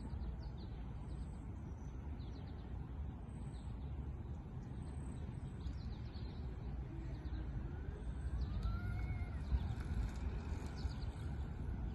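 Birds chirping again and again over a steady low rumble, with a few gliding calls in the last few seconds.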